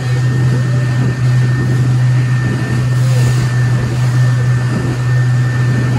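Small motorboat under way at speed: a steady low engine drone with wind and rushing water.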